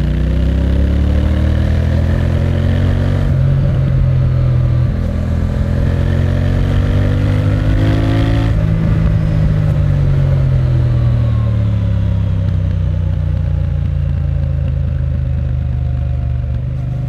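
Triumph Bonneville T120's 1200cc water-cooled parallel-twin engine, heard from the rider's seat while riding. It climbs in pitch under throttle to a peak about eight seconds in, then falls away as the throttle closes and settles to a steady lower note.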